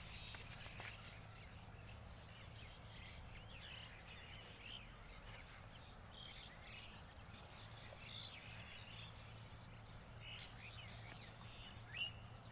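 Faint outdoor ambience: small birds chirping here and there over a steady low hum, with one brief click near the end.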